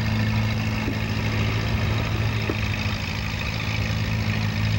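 1947 Farmall M tractor's four-cylinder engine running steadily under load as it pulls the weight sled, with a low, even note that does not rise or fall.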